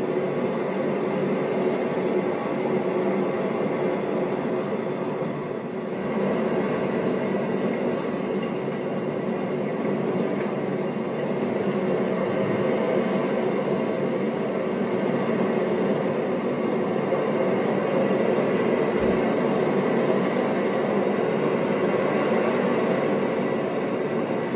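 A steady, loud rushing noise with a few faint steady tones in it, standing in for storm wind. It dips briefly and comes back a little louder about six seconds in.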